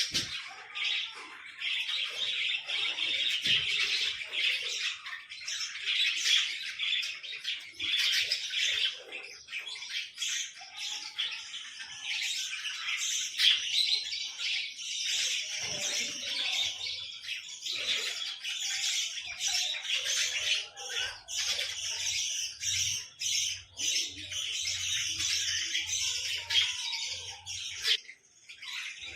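Many small birds chirping and squawking continuously in a busy, overlapping chatter.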